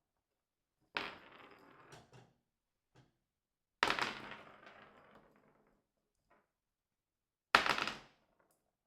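Three separate sharp impacts about three seconds apart, each starting suddenly and rattling away over up to two seconds, with a faint tick between the first two and silence between them.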